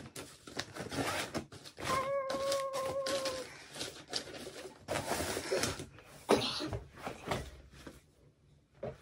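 Rummaging and handling noises: rustles, light clicks and knocks as things are moved about in boxes and bags. About two seconds in, a short steady pitched note is held for about a second and a half, and a sharper knock comes a little past six seconds.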